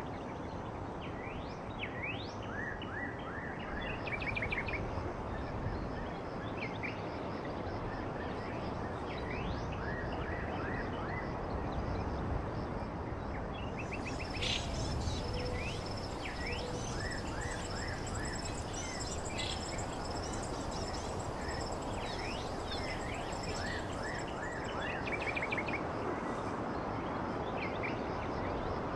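Rural outdoor ambience: small birds chirping and calling repeatedly over a steady rushing noise. A thin, high, steady whine, like an insect, joins in the middle for about ten seconds.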